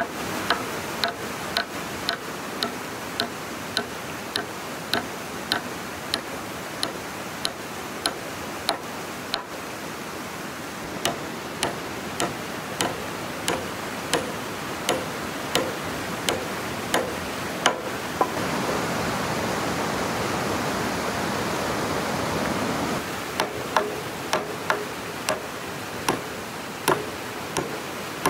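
Hand-tool strikes on wood, steady and evenly spaced at about three every two seconds, each with a short ringing tone, over a constant rushing hiss. Past the middle the strikes stop for about five seconds while a louder rushing noise swells, then they start again.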